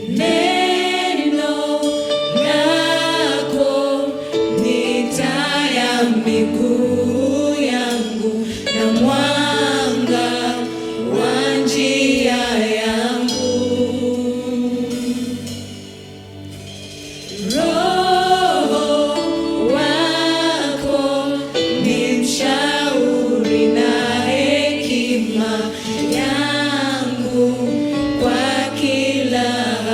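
Gospel worship song: voices singing over sustained instrumental backing, with a short lull about halfway through before the singing resumes.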